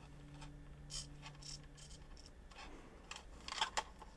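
Faint clicks and light scrapes of small 3D-printed plastic parts and screw hardware being handled, with a quick cluster of louder clicks about three and a half seconds in. A faint steady low hum runs under the first two seconds, then stops.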